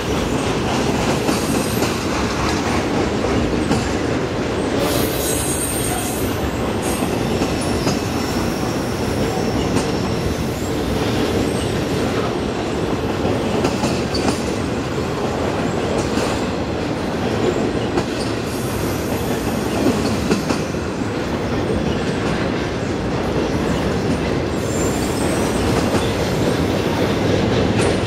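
BNSF intermodal freight train of semi-trailers on flatcars rolling past: a steady rumble of steel wheels on rail with clickety-clack, and brief high wheel squeals every few seconds.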